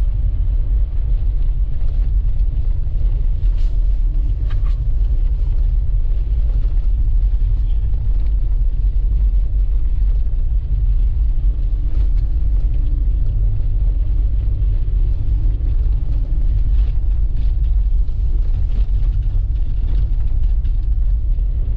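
A car driving through deep snow and slush: a steady low rumble of engine and tyres, with no change in pace.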